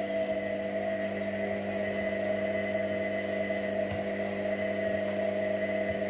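Whirlpool front-loading washing machine spinning its drum of laundry near the end of its cycle: a steady motor whine with several pitches over a low hum.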